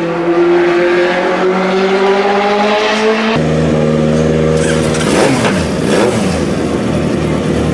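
Legends race car's Yamaha motorcycle engine running with slowly rising revs, heard from inside the car. About three seconds in, the sound changes abruptly to the engine idling steadily, with brief rises and falls in pitch around the middle.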